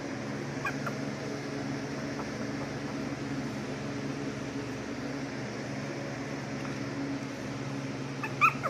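Steady mechanical hum of a household appliance or fan. A brief high squeak comes near the end.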